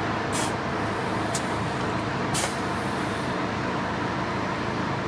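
Single-head seamless welding and cleaning machine running with a steady mechanical hum, and three short hisses of compressed air about a second apart in the first half.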